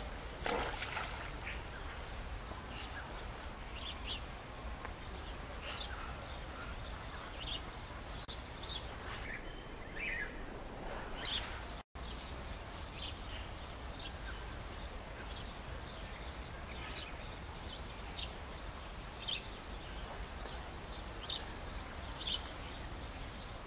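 Short, high bird calls at irregular intervals over steady outdoor background noise, with one louder, lower-pitched call near the start.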